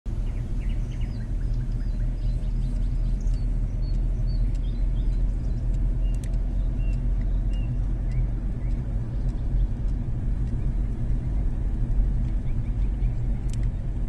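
Steady low rumble of a car driving along a road, heard from inside the moving vehicle, with a few faint bird chirps over it in the first half.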